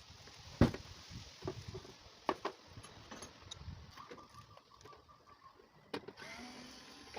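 Scattered metallic clicks and knocks of hand tools working on a car's fender, with one sharp knock about half a second in and a faint squeak in the middle.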